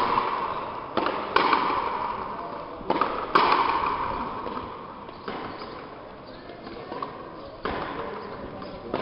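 Frontenis rally: the rubber ball struck by racquets and hitting the frontón wall, sharp cracks that ring out with a long echo in the big hall. About seven hits, the first four in pairs roughly half a second apart, the later ones spaced further.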